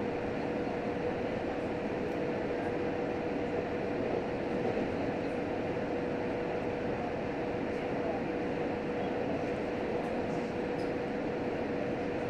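Steady running noise of a JR Hokkaido H100 diesel-electric railcar, heard inside the passenger cabin while it runs between stations. Even wheel-and-rail and drive noise with a steady mid-pitched hum throughout.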